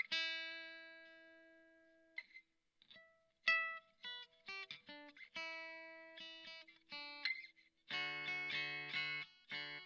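Harley Benton HBD-120CE acoustic-electric dreadnought guitar being played. Picked notes and a chord that rings out and fades over about two seconds come first, then more picked single notes, and from about eight seconds in, fuller strummed chords.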